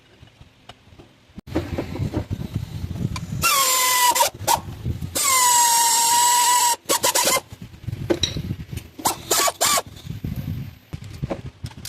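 A hand-held power tool driving bolts in two bursts, the first about a second long and the second about a second and a half, each a steady whine, while the bracket beside a newly fitted water pump is bolted on. Metal clinks and rattles of tools and parts come before, between and after.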